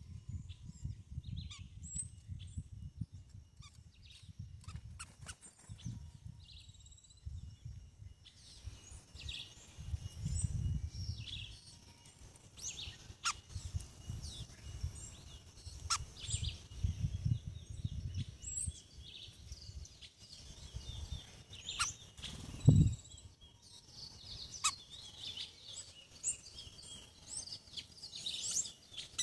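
Birds chirping and calling with many short, high notes, over an uneven low rumble. One sharp thump about two-thirds of the way through.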